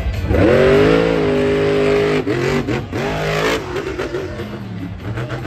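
Grave Digger monster truck's supercharged V8 revving hard on launch, its pitch rising steeply and holding high, then dropping about two seconds in, blipping up again and running lower and rougher toward the end.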